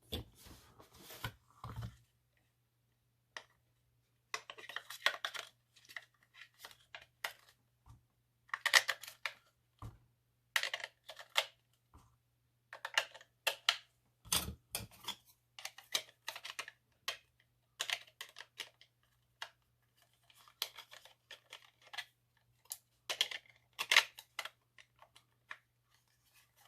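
Batteries being gathered and fitted into the battery compartment of a Flysky FS-GT5 pistol-grip radio transmitter: scattered small plastic clicks, taps and rattles, with a few sharper knocks about 8, 9, 14 and 24 seconds in.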